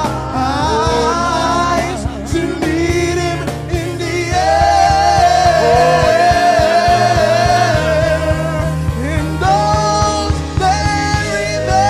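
Gospel music: a singer holding long, wavering notes over a band with a steady bass line.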